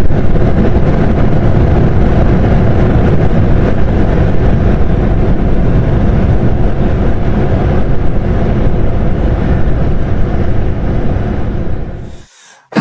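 Strong wind blowing and buffeting a phone's microphone: a loud, steady rumbling rush that cuts off abruptly near the end.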